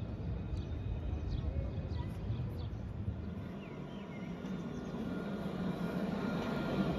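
Alstom Citadis tram approaching over the second half: a steady electric whine over a rolling rumble, growing louder. Before it comes open street ambience with short high chirps.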